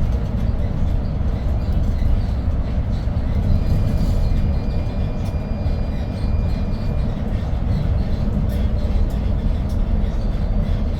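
Inside a 2022 Hyundai New Super Aerocity city bus under way: the steady low rumble of its C6AF CNG engine mixed with road and cabin noise. A faint thin high whine comes in about three and a half seconds in and fades a few seconds later.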